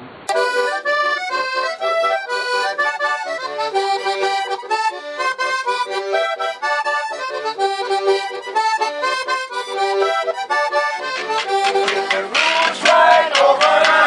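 Diatonic button accordion played solo, a quick run of melody notes in steady succession. About twelve seconds in it cuts abruptly to a different, louder piece of music.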